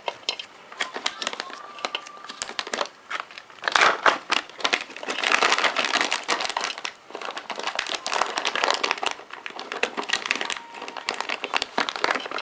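Plastic cat-treat bag crinkling and crackling as it is handled and opened, in irregular bursts, loudest around four to six seconds in.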